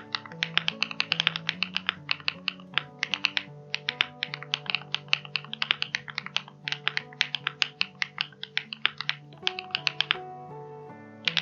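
Fast typing on a modded Monsgeek M2 mechanical keyboard with Hyacinth V2U switches and Akko pudding keycaps: a quick run of sharp, crackly clacks, several a second, over background music. The typing stops about ten seconds in while the music goes on.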